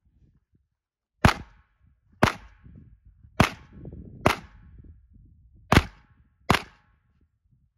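Six pistol shots fired during an IDPA stage, sharp cracks about a second apart, the last two a little closer together, each followed by a short echo.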